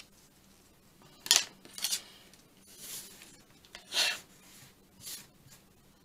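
Small craft scissors snipping paper, a few sharp clicks with a paper rustle between them, then the scissors set down with a click on a cutting mat about four seconds in.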